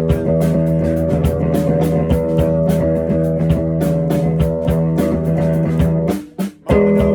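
Rock music with guitar, bass and drums playing a steady beat; near the end it stops abruptly for about half a second, then comes back in.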